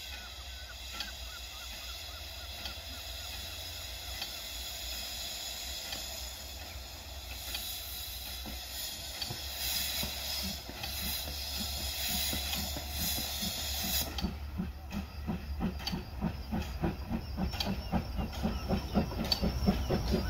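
Narrow-gauge steam locomotive, a 1953 Bagnall, drifting slowly closer with steam hissing. The hiss cuts off sharply about fourteen seconds in, and a fast regular beat then grows steadily louder as the engine draws near.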